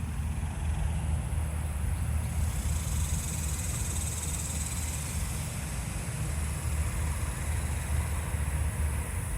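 Steady low outdoor rumble, with a faint high insect drone rising and fading in the first half.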